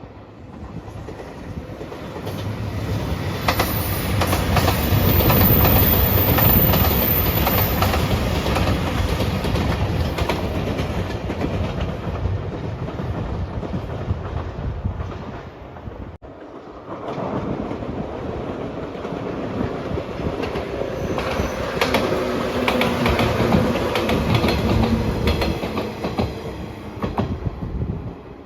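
JR Shikoku 2700 series diesel multiple unit (the Nanpu limited express) passing close by over a level crossing, its engines running and its wheels clacking over the rail joints. A cut about halfway through starts a second similar train passing, which dies away near the end.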